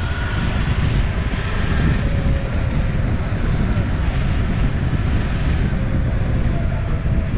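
Electric skateboard rolling fast on asphalt: a steady rumble from the wheels and wind buffeting the microphone, with a faint motor whine that rises and falls in pitch.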